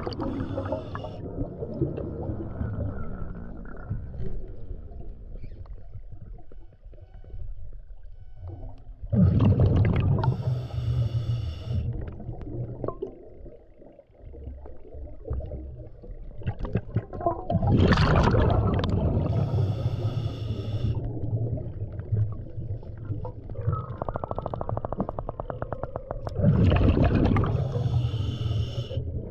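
Scuba diver breathing through a regulator underwater: three breaths about eight or nine seconds apart, each a loud rush of exhaust bubbles paired with a hissing draw on the regulator.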